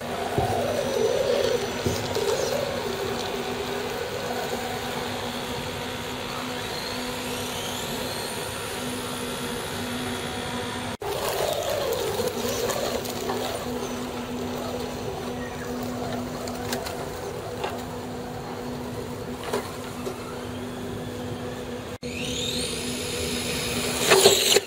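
Radio-controlled Axial AX10 truck driving, its electric motor and gears whining with a steady low hum underneath. The whine rises in pitch as the truck speeds up, about a third of the way in and again near the end.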